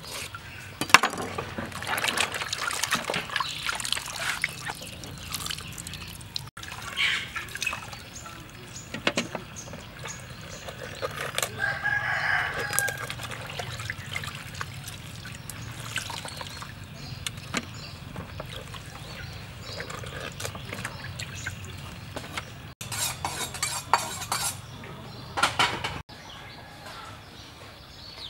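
Water splashing and dripping as pickled mustard greens are squeezed and rinsed in a basin of water. A rooster crows once in the background, about halfway through, and there are a few short clatters near the end.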